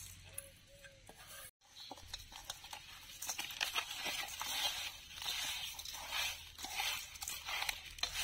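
Hands mixing granulated sugar into boiled winter melon pieces in a stainless steel bowl: a gritty rustling with many small clicks. It starts after a brief dropout about one and a half seconds in.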